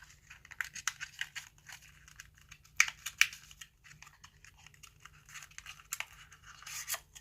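Product packaging being handled and unwrapped: irregular crinkling and rustling with sharp little clicks, loudest about three seconds in.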